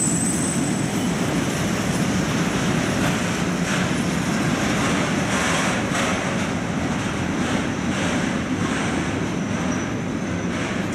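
Passenger train running past at a station, a steady rumble and hiss with a run of wheel knocks over rail joints from about three to nine seconds in; the noise eases slightly near the end.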